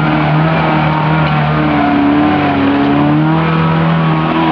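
Off-road 4x4's engine running steadily under load at moderate revs, its pitch rising and falling gently as the vehicle is eased through a rough obstacle.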